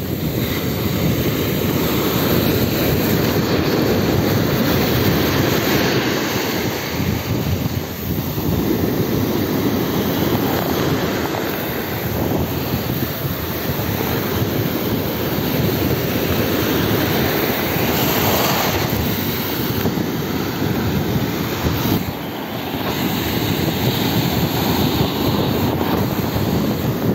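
Ocean waves breaking and foamy surf washing over the sand at the water's edge, a steady rushing noise that swells and eases, with wind buffeting the microphone.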